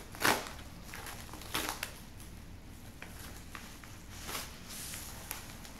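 Yellow padded paper mailer being torn open and handled: a few short bursts of paper rustling and tearing, the loudest right at the start.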